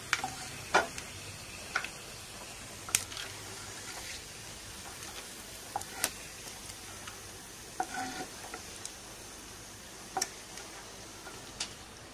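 Ghee sizzling softly in a nonstick frying pan while a wooden spatula scrapes out roasted coconut. Occasional sharp taps and scrapes of the spatula against the pan come every second or two.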